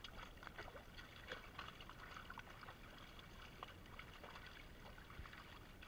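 Faint, irregular splashing and dripping of fish thrashing in a net drawn up in shallow water, many small splashes close together.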